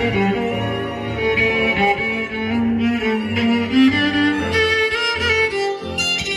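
Background music played by bowed strings, cello and violin, in slow held notes.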